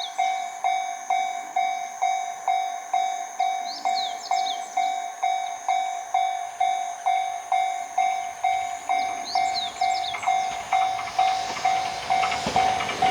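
Japanese railway level-crossing alarm ringing its repeated bell tone, about two strikes a second, warning that a train is coming. In the last few seconds the noise of the approaching train grows under it.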